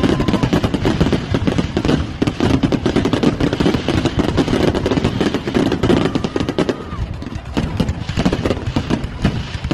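Fireworks going off in a dense, rapid barrage of bangs and crackles, with a brief steady whistle about six seconds in.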